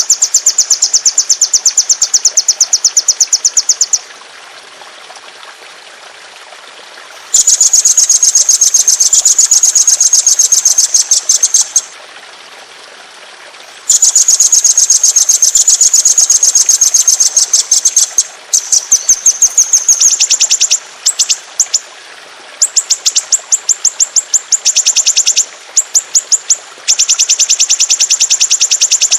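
Songbird singing long, very rapid high-pitched trills, the 'ngeroll' rolls used as masteran training song. The first runs last about four seconds each with short pauses between them, then the song breaks into shorter, choppy bursts in the last third. A steady background hiss lies beneath.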